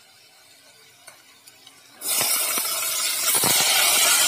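Diced raw potatoes hitting hot oil in a metal pot and sizzling, starting suddenly about two seconds in and then holding steady, with a few knocks as they are tipped in and stirred.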